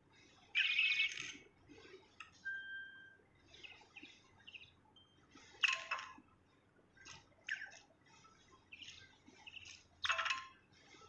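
A songbird singing: three loud, sharp bursts of song, about half a second in, near the middle and near the end, with softer chirps and two short, steady whistled notes in between.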